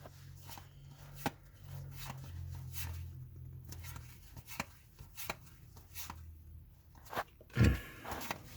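Trading cards being handled and flipped through: a string of light, irregular clicks and taps as cards slide off the stack and are set down, over a low hum during the first several seconds.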